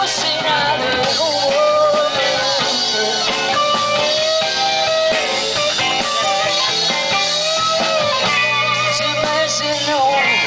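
A live rock band playing a song, with electric guitars, bass guitar and a drum kit.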